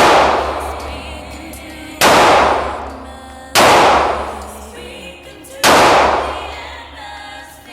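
Four gunshots at a firing range, about one every one and a half to two seconds, each a sharp crack followed by a long fading tail. A song plays faintly underneath.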